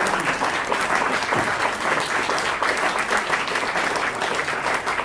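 Audience applauding: many pairs of hands clapping at once in a dense, steady patter.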